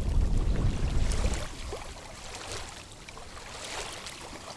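Wind buffeting the microphone with a loud low rumble for the first second and a half, then small wind-driven waves lapping and splashing at a reedy shoreline.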